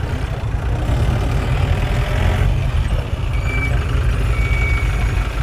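Motor vehicle on the move: a steady low rumble of engine and road noise. Two short, faint high squeaks sound in the second half.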